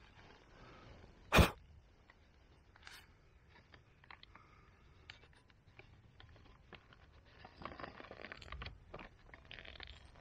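One sharp knock about a second and a half in, then small clicks and crinkling of a plastic zip-lock food pouch, and near the end hot water poured from a metal camping pot into the pouch.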